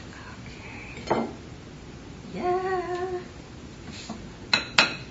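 Kitchen utensil sounds while cooking pancakes: a clack about a second in, then a woman hums one steady note for under a second, then two sharp utensil taps near the end, the loudest sounds here.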